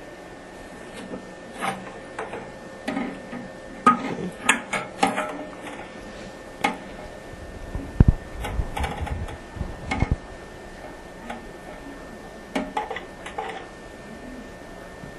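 Brass ball cock and its float arm being handled and seated in a porcelain toilet tank: irregular clicks, knocks and rattles of metal parts against the tank, with a heavier thump about eight seconds in.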